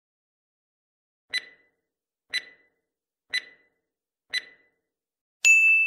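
A countdown timer sound effect: four clock-like ticks one second apart, then a bright ding that rings on for about a second, marking the end of the learners' answer time.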